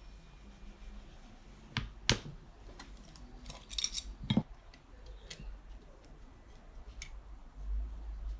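Metal tools and moped engine parts clinking and knocking as they are handled on a work table: two sharp knocks about two seconds in, a cluster of clinks near four seconds, then a few lighter clicks.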